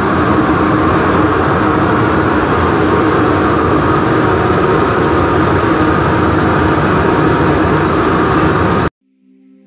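Steady mechanical din of a commercial kitchen's ventilation, the exhaust hood fans over the gas range running with a low hum and a higher whine held under it. It cuts off suddenly near the end, leaving faint soft music.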